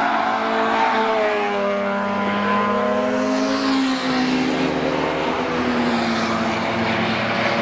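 Car engines passing at speed on a race track, their notes rising under acceleration and falling as they go by, with a motorcycle engine among them.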